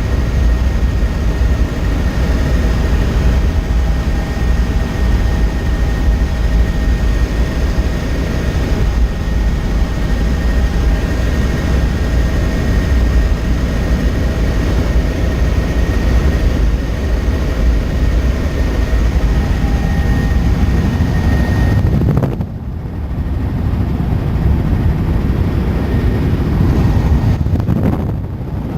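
Helicopter in flight, heard from on board: steady engine and rotor noise with a steady high whine over it. The sound dips briefly twice in the last third.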